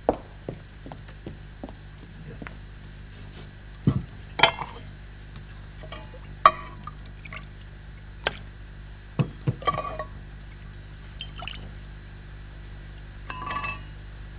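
Soup being served: a ladle clinking against a porcelain tureen and soup plate, with scattered knocks of dishes and cutlery and some liquid being poured. About a dozen separate clinks, several ringing briefly.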